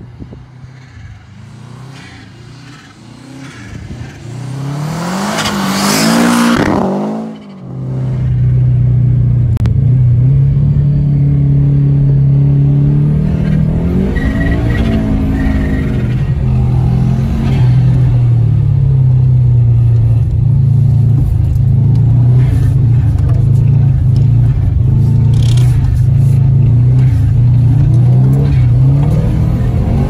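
A Subaru approaching and passing on a snowy road, its engine getting louder and rising in pitch, then sweeping down as it goes by about six seconds in. After that, the Subaru's engine is heard from inside the cabin, running loud and steady under load, with small rises and dips in pitch.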